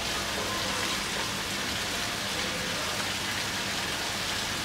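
Steady hiss of falling or running water, even and unbroken, with no clear cleaver strikes standing out.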